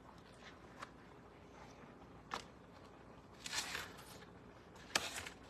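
Kitchen handling noises: a sharp click or knock, a short rustle, then another sharp click.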